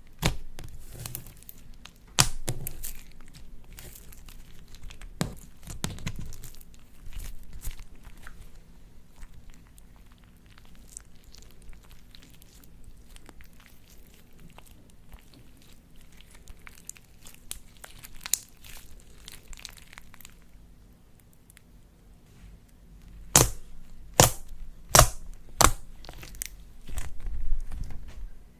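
Slime being worked by hand with mixed-in items, giving crinkling, crackling handling sounds. Past the middle it goes quieter, and then comes a run of several loud, sharp cracks.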